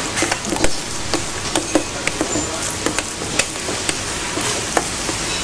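Wooden spoon beating a thick mashed-potato batter in a stainless steel bowl: irregular knocks and scrapes of the spoon against the bowl, over a steady hiss.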